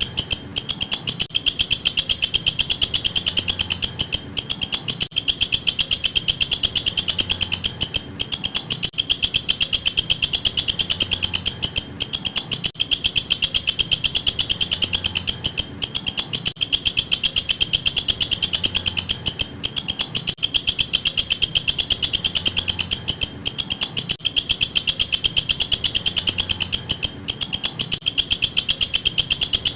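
Walang kecek, a katydid, stridulating: a loud, high-pitched, very fast pulsing trill that runs on with brief breaks every second or few seconds.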